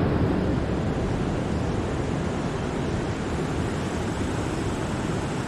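Wind blowing across the microphone: a steady, low rushing rumble.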